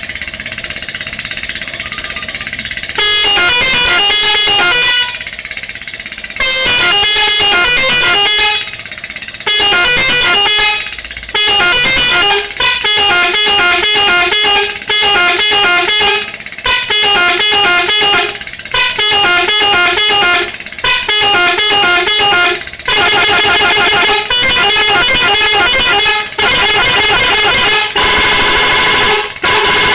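Multi-tone 'telolet' bus horn playing quick melodic phrases, several horn tones changing pitch together, in a long run of loud blasts starting about three seconds in.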